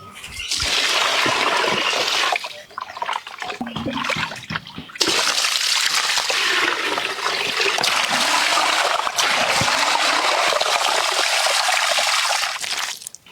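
Water rushing and splashing in a steady hiss, broken by a weaker patch and then starting again abruptly about five seconds in, cutting off just before the end.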